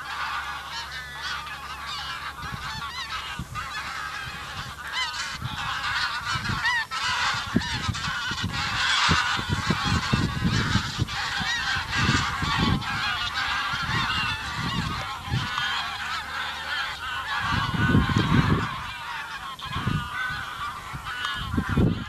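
A large flock of geese flying overhead, many birds honking at once in a continuous chorus that swells toward the middle. Gusts of wind rumble on the microphone at times, most strongly near the end.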